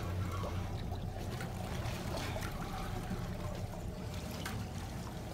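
Boat engine running at idle, a steady low hum, with water lapping and trickling against the hull.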